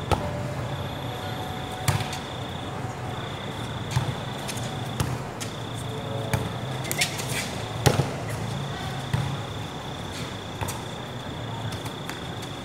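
Volleyball being struck and bouncing on the court: scattered sharp slaps a second or two apart, with a steady high whine behind them.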